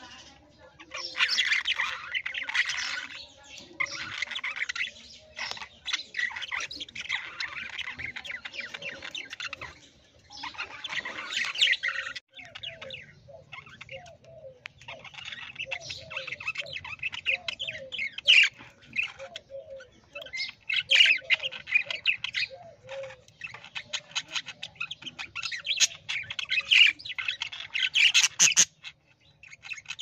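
Budgerigars chattering, in bursts of rapid warbling chirps and squawks.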